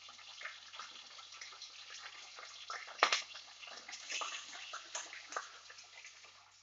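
Water poured from a steel vessel into a steel tumbler and tipped from it into a steel cooking pot: splashing and trickling, with a single sharp metallic clink about three seconds in. The water is being measured into the pot by the glass.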